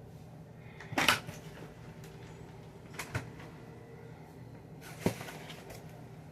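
Knocks and clatters of food and plastic fridge drawers being handled while a fridge is stocked. There is a loud clatter about a second in, two quick clicks around three seconds, and one more knock around five seconds.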